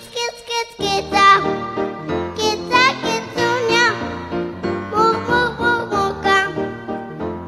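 A song with singing over an instrumental backing.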